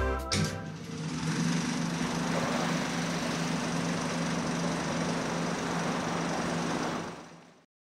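Production-logo sound effect: a steady droning hum under a rushing hiss, starting just after a closing music chord and fading out near the end.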